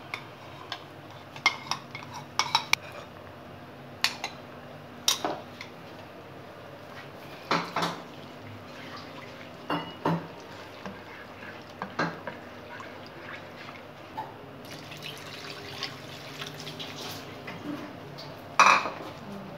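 A metal spoon clinking and scraping against a non-stick wok while ketchup is stirred into hot oil, in irregular clacks. A faint hiss comes up in the second half, and one louder clatter comes near the end.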